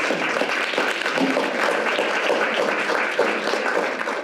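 Steady applause from a room full of people, many hands clapping at once.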